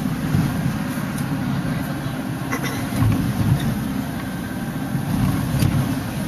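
A van's engine and tyre noise heard from inside the cabin while it is driving, a steady low rumble with a few faint clicks.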